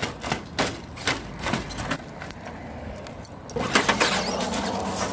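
A run of sharp knocks and clatter in the first two seconds, then a brushed-motor Traxxas Slash 2WD RC truck on a 3S lipo whines up under full throttle about three and a half seconds in, its tyres hissing on asphalt as it pulls its front wheels up.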